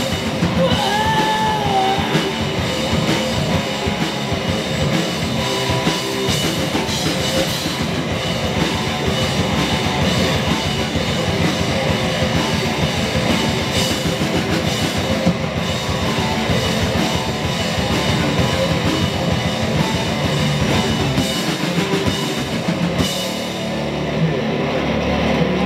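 Live stoner-rock band playing loud: distorted electric guitars, bass and drum kit. The low end thins out about 21 seconds in, with a cymbal-like crash a couple of seconds later.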